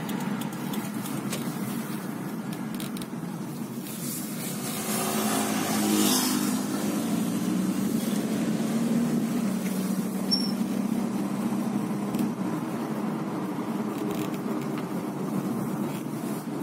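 Steady road and engine noise heard from inside a moving car. A louder rushing swell builds and fades about four to eight seconds in.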